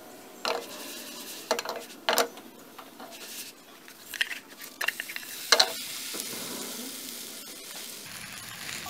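Potato and onion pancake sizzling in oil in a nonstick frying pan, with several sharp scrapes and knocks of a wooden spatula against the pan as the pancake is pushed and shaped; the loudest comes about five and a half seconds in.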